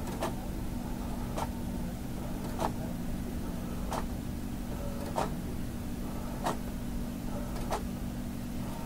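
Printer printing: a steady hum with a short click repeating at an even pace, about every second and a quarter.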